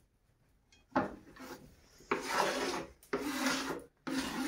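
Kitchen knife scraping chopped onions across a wooden cutting board into a frying pan: a sharp scrape about a second in, then three longer scrapes one after another.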